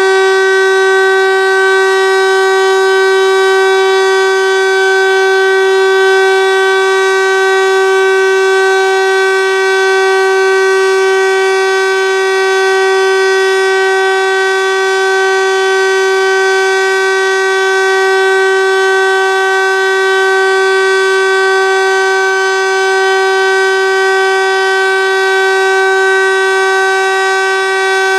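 Landert MSL-3 motor siren (rotor/stator type) sounding a steady continuous tone, the Dauerton signal of a civil-defence siren test. It is one loud, unchanging note rich in overtones, with no rise or fall in pitch.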